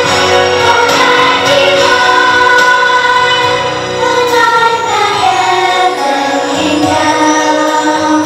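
A group of children singing a Christmas song together over musical accompaniment, the voices holding sustained notes that move from pitch to pitch.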